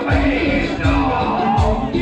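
Latin dance music with a steady bass beat, played loud over a sound system.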